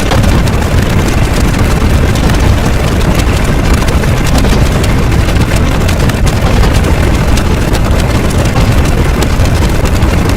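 Loud, steady rumbling noise, heaviest in the bass.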